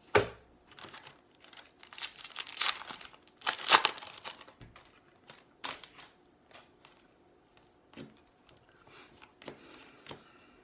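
Plastic wrapper of a baseball card pack crinkling and tearing open, loudest in two stretches about two to four seconds in. A sharp knock comes right at the start, and soft rustles of cards being handled follow.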